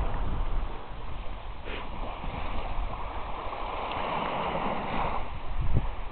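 Small sea waves washing onto a sandy shore: a steady hiss of surf with a low rumble underneath.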